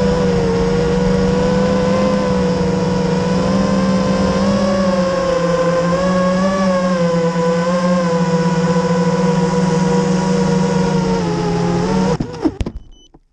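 FPV freestyle quadcopter's motors and propellers, heard from its onboard camera, whining steadily with the pitch wavering as the throttle changes. About 12 seconds in the whine cuts off suddenly with a brief clatter as the quad goes down into the grass.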